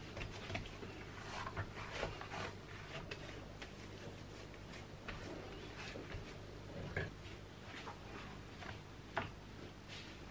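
Bread dough being kneaded by hand on a silicone baking mat: irregular soft slaps and clicks as the hands press and fold the dough, over a steady low hum.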